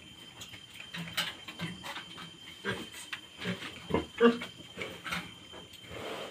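A nursing sow and her newborn piglets grunting and squeaking in short, irregular calls, the loudest about four seconds in.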